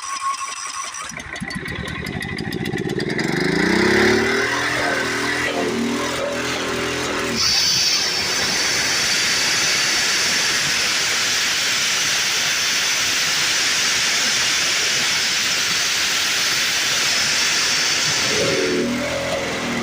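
Homemade sawmill's Predator 420 gas engine catching about a second in and revving up, then running steadily while its belt-and-chain-driven saw chain cuts through a log, a loud steady rasping hiss over the engine from about seven seconds in until near the end, when the cut ends and the engine runs on alone.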